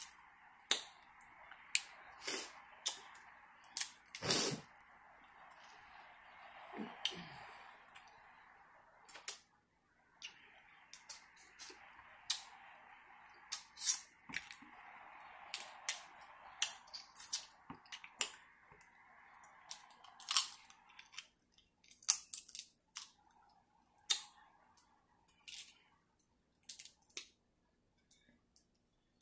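Crab-leg shells being cracked and snapped apart by hand: a string of sharp, irregular cracks and clicks over a faint steady hiss, which stops about two-thirds of the way through.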